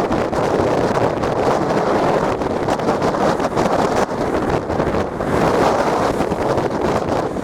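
Strong storm wind buffeting the microphone in a loud, gusting rush, over the noise of breaking storm waves.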